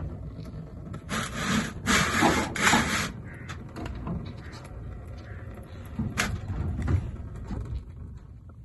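Scraping and rubbing of hands and tools working the old spin-on oil filter loose under a Ford Maverick: three strong scrapes in quick succession between one and three seconds in, a sharper one about six seconds in, and lighter handling noise in between.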